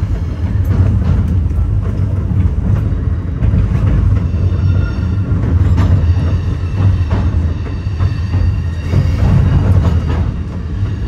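Metra bi-level commuter train rolling over station trackwork, heard from inside the coach: a steady low rumble of wheels and running gear, with occasional clicks as the wheels cross switches and rail joints.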